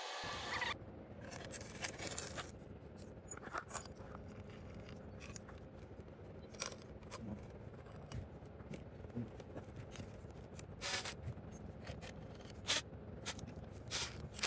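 Light, scattered clicks and scrapes of small hand tools working on a 110cc engine's stator wiring and side cover.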